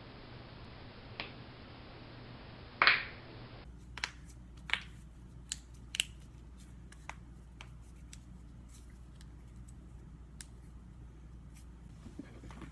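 Joint cracking: a loud pop about three seconds in, after a fainter crack, then a quick run of smaller sharp cracks and clicks.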